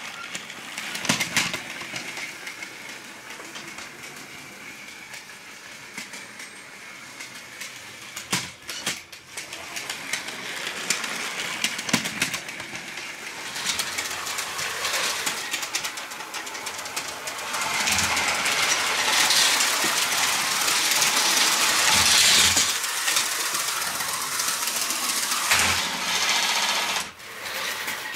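LEGO 12-volt electric train running on plastic track: a steady motor whir under a rapid clatter of small clicks from the wheels and track. It grows louder past the middle as the train comes nearer, then dips briefly near the end.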